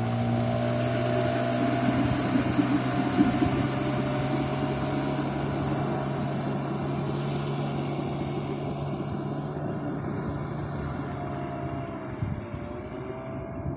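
Hidea 9.9 hp outboard motor running steadily under way, with rushing water and wind noise over its hum, gradually getting quieter.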